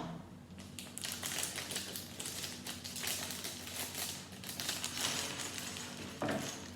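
Plastic bags of Lego pieces being handled: crinkling plastic with quick light clicks of the pieces shifting inside.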